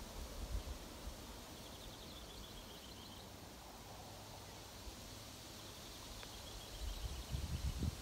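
Wind rustling through the new leaves of trees as a steady soft hiss, with low rumbles of wind on the microphone near the start and again near the end. A small bird sings a high, rapid trill twice in the middle.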